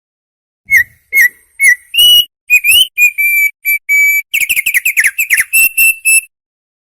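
An opior songbird singing one loud whistled phrase: three short dipping notes, then longer steady whistles, a quick run of downward-sliding notes about four and a half seconds in, and a few final steady notes.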